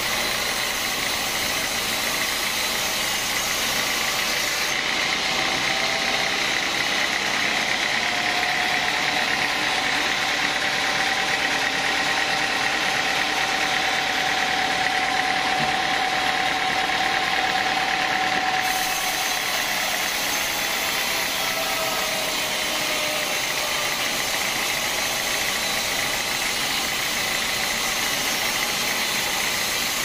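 Vertical band sawmill running steadily, its blade sawing through a teak log, a constant machine noise with a steady high whine over it.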